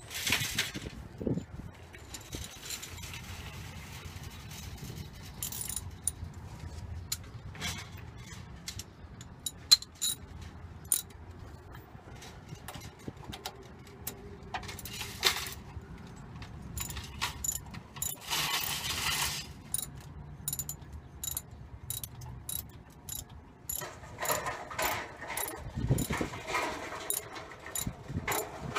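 Metal hand tools clicking and clinking against a nut and bolt as a new one is fitted on a vehicle's starter connection, with a run of quick sharp clicks through the second half.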